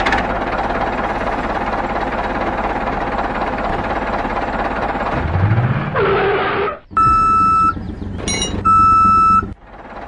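A steady engine-like running sound, with a short rising sweep near the six-second mark. It is followed by two long electronic beeps, each lasting under a second, about a second and a half apart, like a vehicle reversing beeper.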